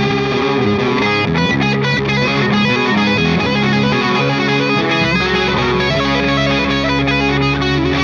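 Distorted electric guitar: a Gibson Les Paul playing a riff through a Laney LA30BL amp into a Friedman cabinet with a Celestion Creamback speaker, one track pushed by a boost pedal. A deeper low note comes in about five seconds in.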